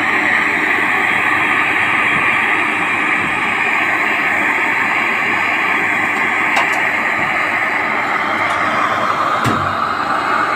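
Gas-cartridge torch flame burning with a steady hiss as it heats an aluminium AC pipe joint for brazing.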